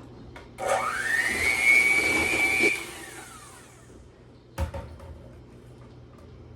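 Electric kitchen mixer creaming oil and sugar: its motor whine rises as it starts, runs steadily for about two seconds, then falls away as it is switched off. A single knock follows near the end.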